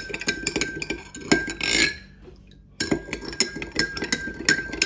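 A metal spoon stirring a drink in a glass tumbler, clinking quickly and repeatedly against the glass. It stops briefly about two seconds in, then goes on.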